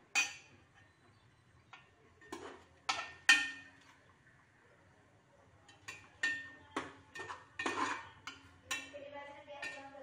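A steel spoon scrapes and clinks against the inside of an aluminium pressure cooker while stirring frying onions and masala, in irregular strikes with a short metallic ring. There is one strike at the start, a few more around two to three seconds in, and a busier run of scrapes and knocks in the second half.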